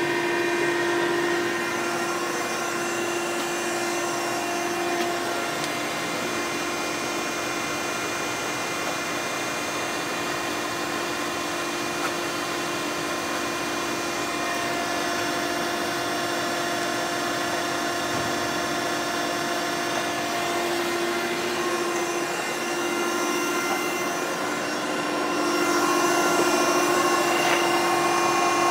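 Okamoto 12 x 24 surface grinder running: a steady electric-motor hum and whine that gets a little louder near the end.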